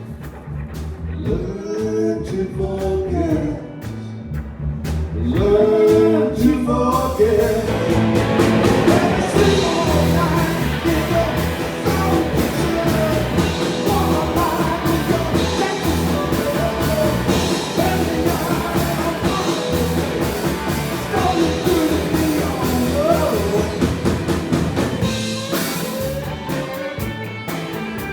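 Rock band playing with lead vocals. A singing voice over sparse backing for the first several seconds, then the full band with drums comes in at about seven seconds.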